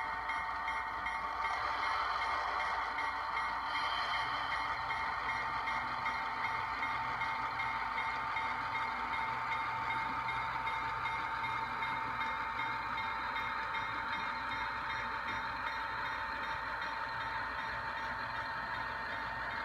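Sound decoder's diesel locomotive engine sound from an HO scale Go Transit FP7 model, played through its small onboard speaker. The engine runs steadily as a thin hiss and rumble with a constant whine, and slowly gets quieter.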